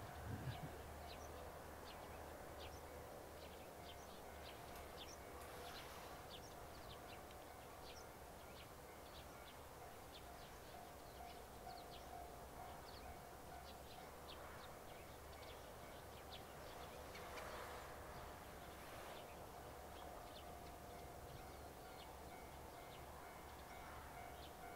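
Faint open-air ambience: small birds chirping in many short, quick calls throughout, over a steady low hum. A brief low rumble comes right at the start.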